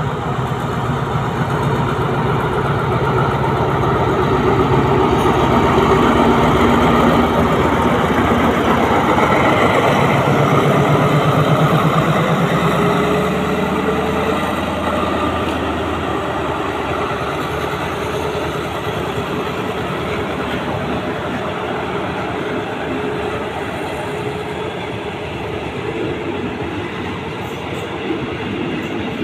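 Diesel locomotive's engine running loud as it passes close by, its pitch rising for a few seconds midway as it opens up. The passenger coaches behind it then roll past steadily on the rails, a little quieter.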